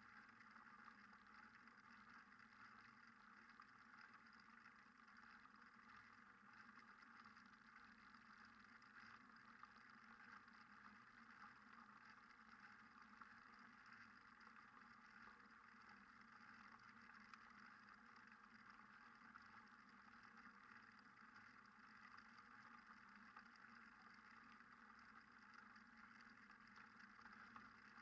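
Near silence: a faint, steady hum and hiss with no distinct events.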